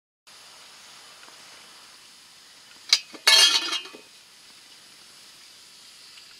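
Lid of an enamel coffee pot clinking against the pot as it is lifted off: one sharp clink about three seconds in, then a short ringing clatter, over a faint steady hiss.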